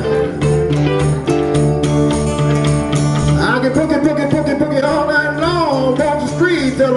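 Live acoustic blues: electric and acoustic guitars playing over the rhythmic scrape of a rubboard. About three and a half seconds in, a man's voice comes in, singing long, wavering notes.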